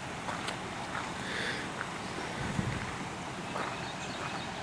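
A vehicle engine idling steadily, with a few faint clicks and a low thump about two and a half seconds in.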